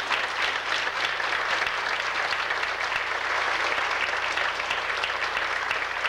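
A congregation applauding, a dense, steady clapping that breaks out suddenly just before and carries on.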